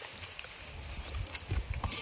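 Goats moving about: scattered light knocks and clatter over a low rumble, growing busier in the second half.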